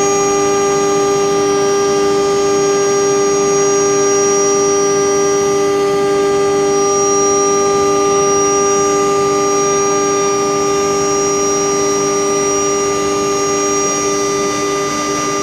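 CNC router spindle running at speed with a steady whine while its cutter mills a shallow groove in a wood panel. The pitch wavers slightly near the end as the cut changes.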